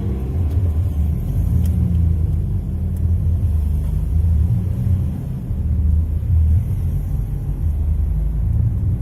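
Car driving along: a steady, deep rumble of engine and road noise.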